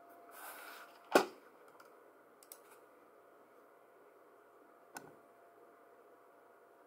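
A few sharp clicks from hands working at a desk: a brief rustle, then one loud click a little over a second in, with lighter clicks about two and a half and five seconds in.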